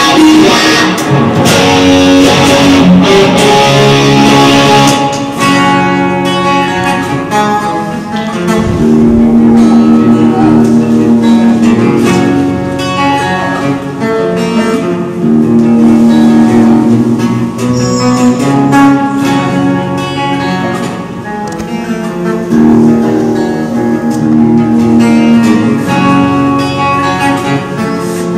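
Electric guitar played solo through a small combo amp. It opens with a few seconds of strummed chords, then moves to picked single notes and arpeggiated chords in a slow, melodic passage.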